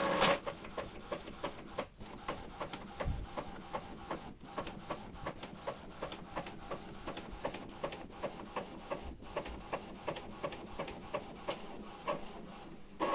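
Epson EcoTank ink-tank printer printing a colour page: the printhead carriage shuttles back and forth in a steady rhythm of short strokes, about three a second, with a louder whir at the start and again near the end.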